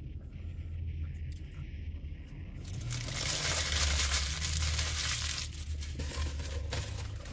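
Paper sandwich wrapper being crumpled and crinkled in the hands, starting about three seconds in and breaking into separate crackles near the end.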